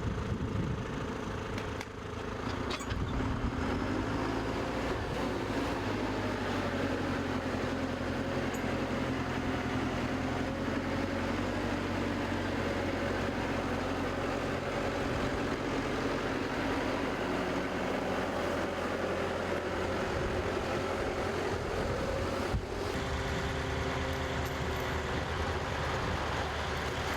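A vehicle engine running steadily, a continuous drone that changes abruptly about 2 seconds in and again near the end.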